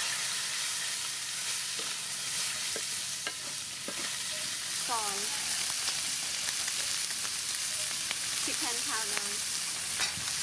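Shrimp sizzling steadily in hot oil in a metal wok, with a few light clicks of a wooden spatula against the pan in the first few seconds.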